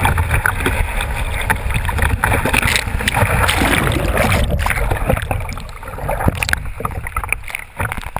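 Kiteboard planing through choppy water: spray splashing and rushing past the board, with a heavy wind rumble on the board-mounted camera's microphone.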